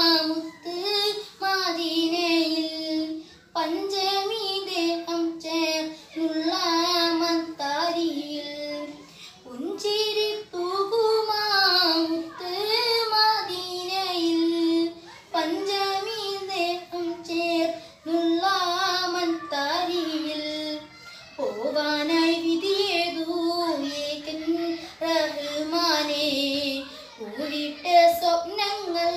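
A boy singing an Islamic devotional song solo and unaccompanied, phrase after phrase, with short breaths between the lines.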